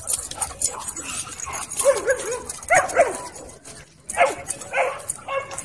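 Dogs play-fighting, giving short whining yips and barks in two bunches, about two seconds in and again from about four seconds in, over a faint crackle of movement.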